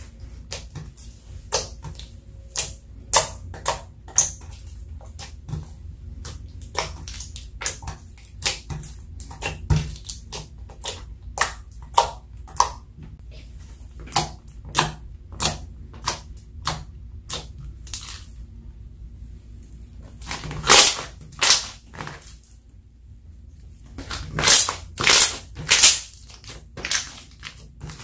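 Slime being kneaded, pressed and stretched by hand, making irregular sharp wet clicks and pops, one to a few a second. Louder bunches of pops come about three-quarters of the way through and again near the end.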